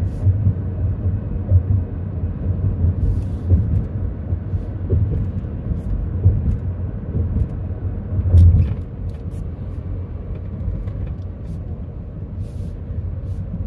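Low, steady road and engine rumble heard inside a moving car on smooth, freshly paved asphalt, with a brief louder swell about two-thirds of the way through.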